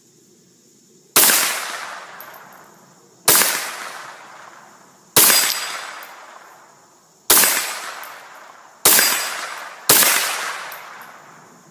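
Six gunshots one to two seconds apart, each trailing off in a long rolling echo.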